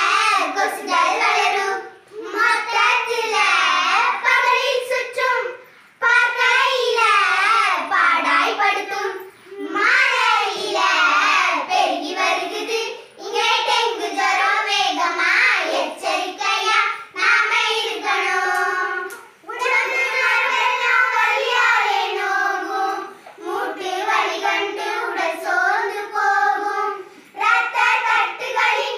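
A group of young girls singing a song in Tamil together, without instruments, in phrases with short breaks between them.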